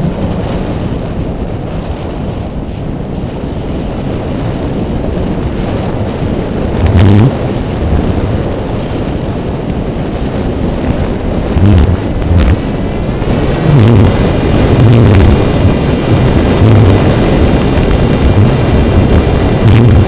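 Wind buffeting the microphone of a drone in flight: a loud, steady low rumble with stronger gusts about a third of the way in and through the second half. From about two-thirds in, a steady multi-tone whine from the drone's motors rises above it.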